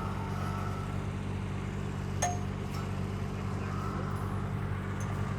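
Engine of an aerial lift running steadily, with a single metallic clink that rings briefly about two seconds in.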